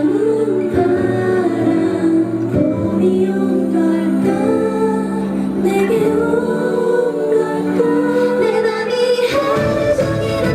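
A woman singing a slow pop melody over a backing track, with deep bass coming in near the end.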